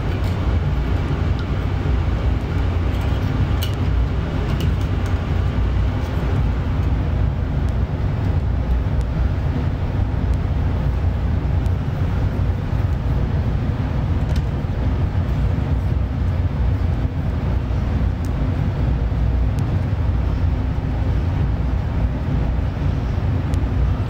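A steady low rumble of background noise, with a few faint clicks as wires and plastic wire nuts are handled.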